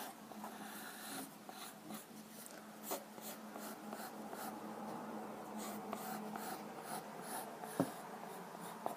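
Pencil sketching on paper: light scratchy strokes as long curved lines are drawn, over a faint steady hum.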